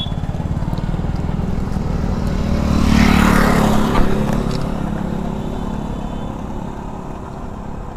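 A motorcycle engine idling close by in a steady low rumble. A scooter passes along the road, growing louder to a peak three to four seconds in and then fading away.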